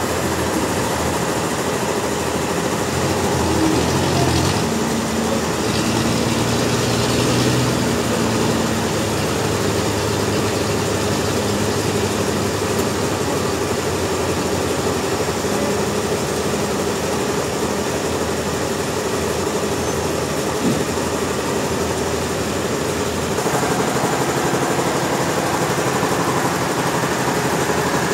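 Sawmill machinery running steadily, a motor or engine hum with held tones; the sound shifts slightly about 23 seconds in.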